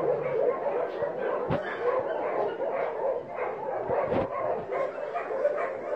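Several dogs vocalising as they play together: a continuous run of short calls that bend up and down in pitch, with a couple of dull thumps.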